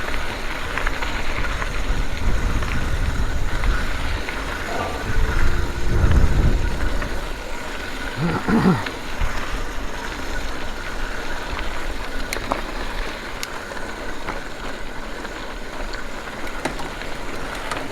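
Mountain bike riding on a dirt trail: steady rumbling noise from the tyres and wind on the microphone, with a heavy wind gust about six seconds in and a short call a couple of seconds later.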